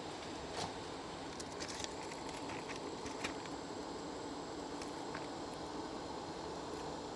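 Steady rush of air from workbench blowers (fume-extraction fan and hot air station), with a few faint light clicks and taps.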